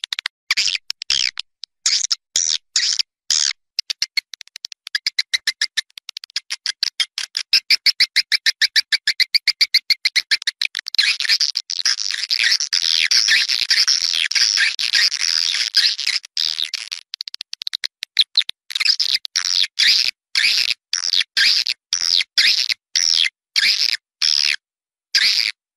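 Swiftlet lure recording: rapid high chirping and twittering of swiftlets, the outdoor call used to draw the birds to a swiftlet house. A fast run of even chirps gives way to a dense stretch of twittering in the middle, then to short bursts of chirps separated by brief gaps.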